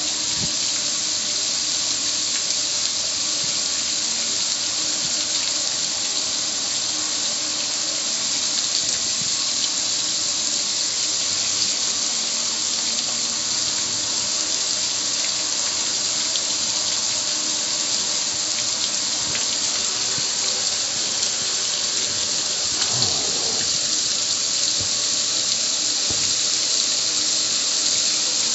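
Garden hose spray nozzle jetting water onto a gas grill's lid, a steady hiss of spray with water splashing and running off the grill.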